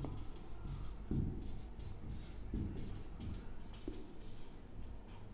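Marker pen writing on a board: a quick run of short, scratchy strokes, several a second, with a few soft low thumps in between.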